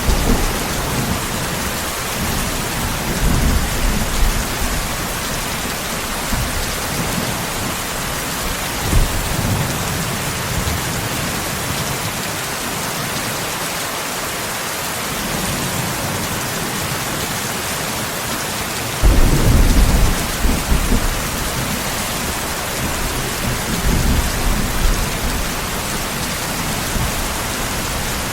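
Steady rain with low rumbles of thunder rolling in about four times. The loudest rumble starts suddenly about two-thirds of the way through.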